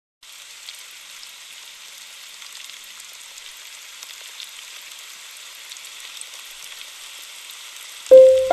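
Steady hiss of rain with faint scattered crackles, coming in after a moment of silence. Just before the end a loud piano note sounds as background music starts over it.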